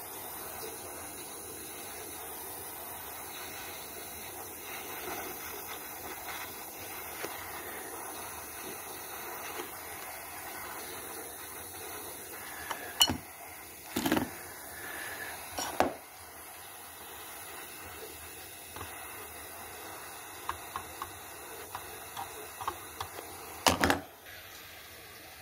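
Small gas torch hissing steadily while a cracked copper pipe joint is soldered. A few sharp metal clinks come a little after halfway, and a louder one near the end.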